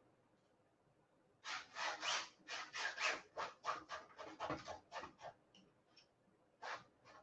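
Small palette knife scraping and spreading paint across a small canvas in quick strokes, about three or four a second. The strokes start about a second and a half in, stop around five seconds, and pick up again near the end.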